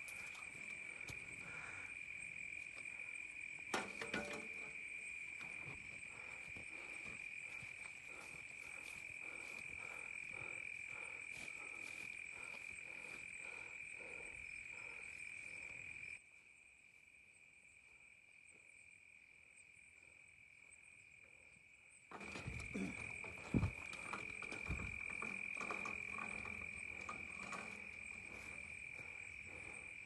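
Night insect chorus: a steady, continuous high trill of crickets. It breaks off for several seconds in the middle, then resumes, with a few brief handling thumps about four seconds in and again soon after the trill returns.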